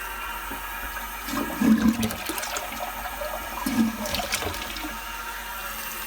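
A toilet being flushed, water rushing steadily, with a couple of louder surges. The toilets in this house are reported not to flush properly, which the plumber puts down to a blocked drain.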